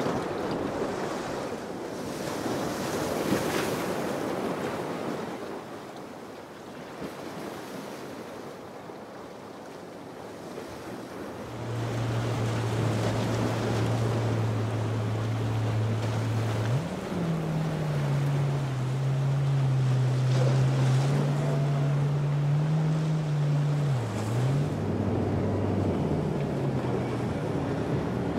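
Surf and wind washing over the microphone at an inlet. Partway through, a low steady hum joins in and stays to the end, stepping up and down in pitch.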